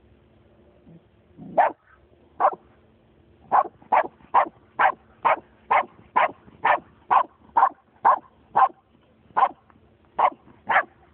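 Nova Scotia duck tolling retriever barking at a cat hiding in the grass: two single barks, then a steady run of short, sharp barks at about two a second.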